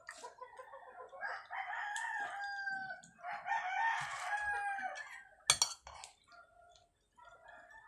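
A rooster crowing twice, each crow long and drawn out with its pitch dropping at the end. Near the end comes a single sharp knock.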